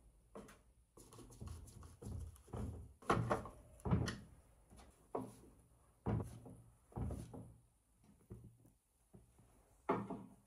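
Small parts and tools being handled on a workbench: an irregular series of knocks and thuds, with no steady rhythm, and a sharper knock near the end.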